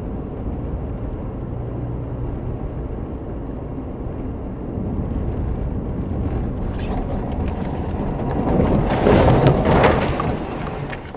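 Steady road and engine noise inside a moving car on a snowy road. About eight seconds in it rises to a loud rushing impact, with snow and dirt clattering against the windshield, then falls away quickly near the end.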